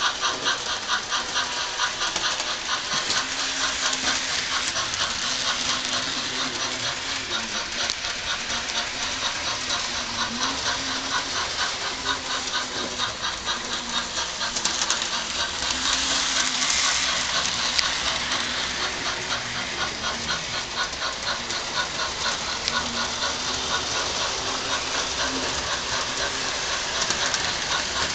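Model 2-6-0 steam locomotive's DCC sound decoder playing a steady, rhythmic steam chuff with hiss as the engine runs.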